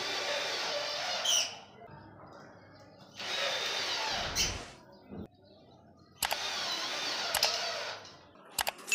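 Cordless drill driver driving screws into a curved gypsum board ceiling strip, running in three bursts of about a second and a half each with short pauses between. A few light clicks near the end.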